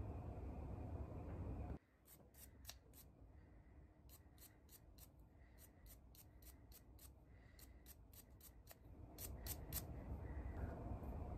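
A brush scrubbing carbon soot off a fouled spark plug tip: a run of short scratchy strokes, about three a second. A low steady rumble cuts out suddenly about two seconds in and comes back near the end.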